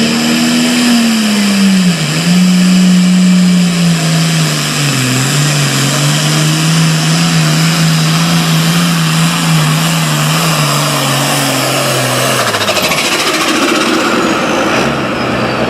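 Turbocharged diesel Super Farm pulling tractor under full load, its engine running hard with a steady note and a high whine above it. About twelve seconds in the engine note drops away sharply as it loses power, which the announcer puts down to the turbocharger failing again.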